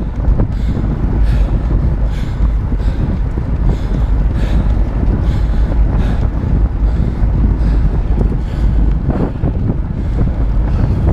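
Heavy wind buffeting on the microphone of a fast-moving camera: a loud, steady low rumble with noisy hiss that rises and falls in gusts.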